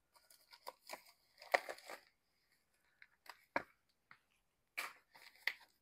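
Plastic bubble mailer being handled: faint rustling and crinkling, with a few short light clicks and taps in the second half.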